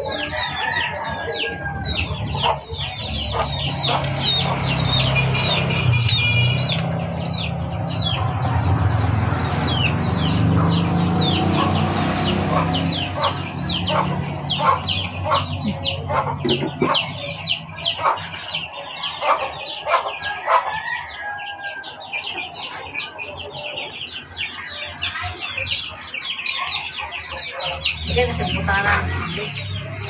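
Chickens calling: a steady stream of short, high chirps with clucking mixed in.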